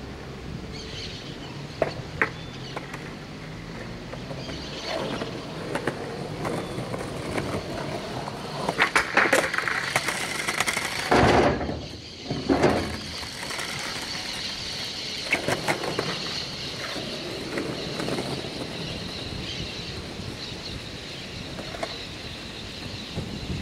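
Skateboard on concrete: sharp clacks of the board against the ground and wheels rolling, with a burst of several impacts about nine to thirteen seconds in.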